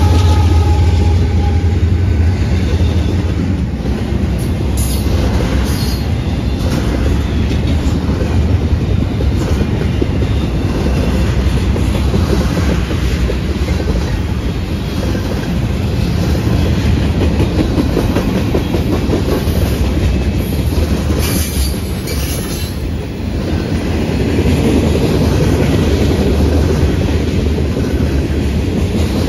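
A GE AC4400CW diesel locomotive passes with a low engine rumble that fades within the first few seconds. Then freight cars (tank cars and covered hoppers) roll by, their steel wheels clattering steadily on the rails, with a few brief high wheel squeals.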